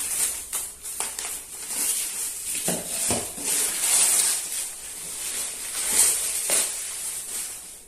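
Plastic packaging crinkling and rustling in the hands, with irregular crackles and small clicks, as a boxed figure is unwrapped from its plastic wrap.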